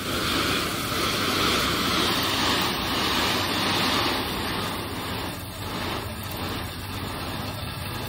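Crushed slate gravel pouring and sliding out of the tipped bed of a dump trailer: a steady rushing rattle that eases off in the second half, over a low hum.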